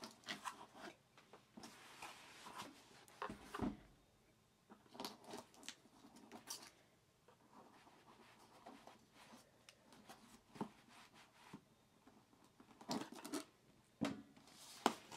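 Faint, scattered scrapes, rustles and light taps of a cardboard shipping box being handled, its clear plastic packing tape picked at and pulled.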